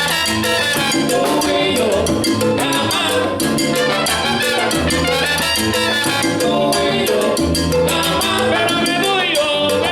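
Salsa band playing live: bass, percussion and pitched melody lines in a steady groove.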